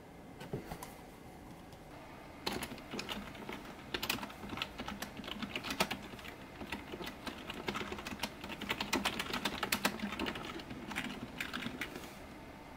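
Typing on a computer keyboard: keys clicking in quick runs, starting about two and a half seconds in and thinning out near the end.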